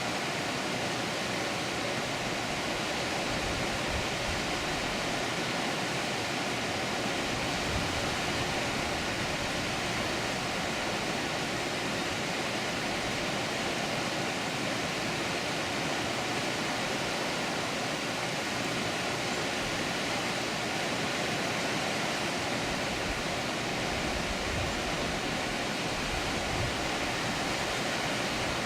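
Water rushing over a dam, a steady, dense hiss with a few brief low rumbles.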